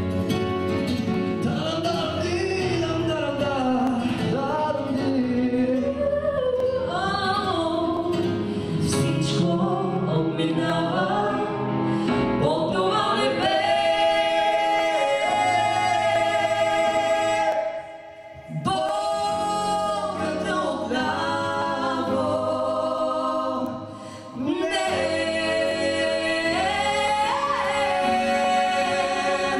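A man and a woman singing a pop duet into microphones with instrumental accompaniment, holding long notes. The music drops away briefly twice, about two-thirds of the way through.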